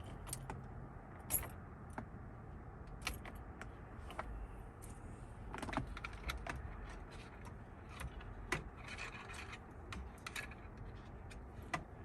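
Scattered light clicks and metallic clinks of hand tools and loose parts being worked at a car dashboard, with a short rattle about nine seconds in.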